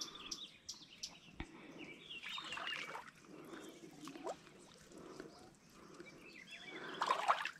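Faint mangrove ambience: scattered bird chirps and small clicks, with a short, louder burst of chirping about seven seconds in.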